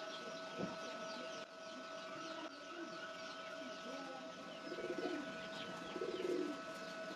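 A dove cooing, its low coos loudest twice in the second half, while small birds chirp throughout.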